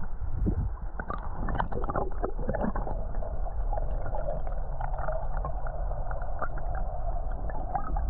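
Creek water heard from under the surface, a muffled, steady rush with scattered small clicks and knocks, as a wild brown trout is held underwater and released.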